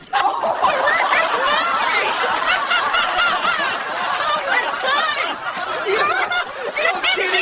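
A crowd of people laughing and snickering together, many voices overlapping in continuous laughter right after a punchline.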